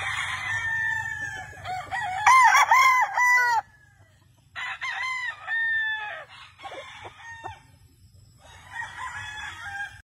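Roosters crowing: a long crow over the first three and a half seconds, another starting about four and a half seconds in, and a shorter one near the end.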